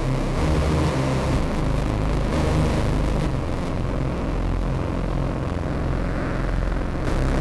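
A steady low rumble, loud and unbroken, with no distinct events in it.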